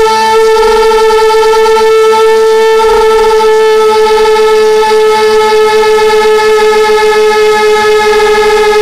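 Quadcopter's electric motors and propellers whining steadily at one loud pitch with many overtones, the pitch sinking slightly as the flight goes on, heard from on board the aircraft.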